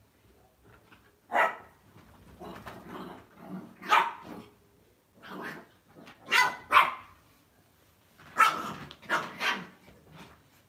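Lhasa Apso dogs barking in short, sharp barks, about eight or nine in loose clusters, during play on a sofa.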